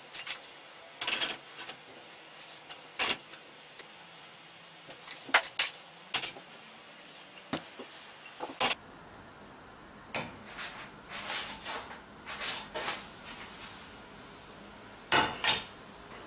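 A metal frying pan and kitchen utensils clanking and clinking in irregular sharp knocks and scrapes, as the pan is lifted off and set back on a gas hob and a thin pancake is tipped out onto a plate. The loudest clanks come about a second in, around three seconds, near eight and a half seconds, and again near the end.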